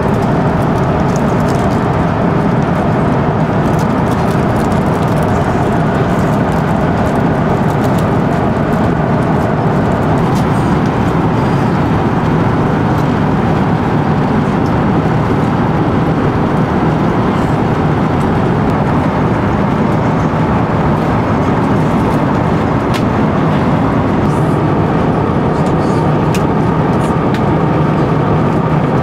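Steady cabin noise of an Airbus A350-900 airliner in cruise, the even rush of engines and airflow heard from inside the economy cabin.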